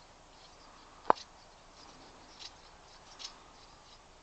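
A single sharp click about a second in, followed by a few faint ticks, over a quiet outdoor background.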